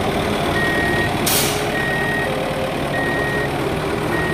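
Truck reversing alarm beeping steadily, about four beeps a little over a second apart, over a running engine hum. A short hiss comes about a second in.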